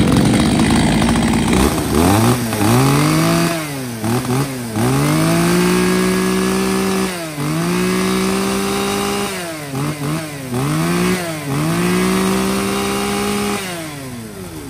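Two-stroke gasoline chainsaw running after a pull start. It is revved in short blips, then held at high revs for about two seconds at a time, three times, before dropping back to idle near the end.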